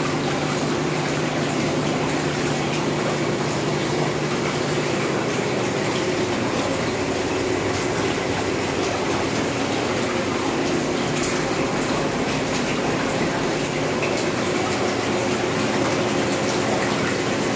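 Jetted whirlpool tub running: a steady rush of churning, bubbling water over the constant hum of the jet pump motor.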